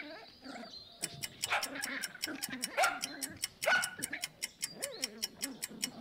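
Puppies making short, high calls that rise and fall, over a quiz countdown timer ticking fast and evenly from about a second in.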